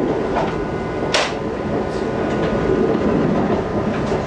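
An Amtrak Acela Express running at speed, heard from inside the car: a steady rumble of wheels on rail with sharp clicks as the wheels cross track joints, the loudest click about a second in.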